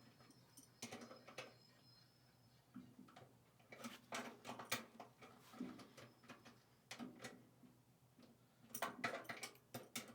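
Faint, irregular clicks and knocks of small objects being handled, with a louder cluster near the end.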